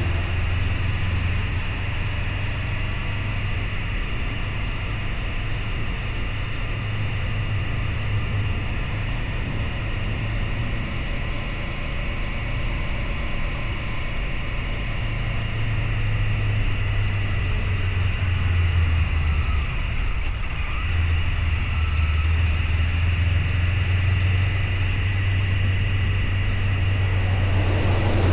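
Motorcycle engine running steadily under way, a constant low engine drone that gets a little louder in the second half.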